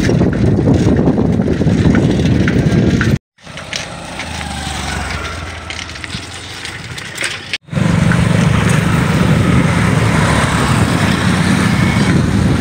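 Riding on a motorcycle: the engine runs under heavy wind noise on the microphone, cut off abruptly twice by edits. Between the cuts there is a quieter stretch with a low steady hum. After the second cut the motorcycle engine runs with a steady low tone amid wind noise.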